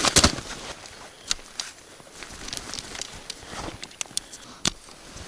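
Scattered sharp clicks and knocks over light rustling as a tent is being pitched, the loudest a pair of knocks right at the start.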